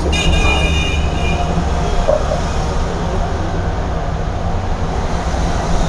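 Steady low rumble of a moving vehicle, with a high squeal of several pitches during the first second and a half.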